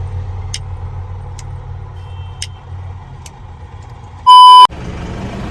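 Truck diesel engine idling with a steady low rumble, with a light click about once a second. Near the end comes a short, very loud electronic beep.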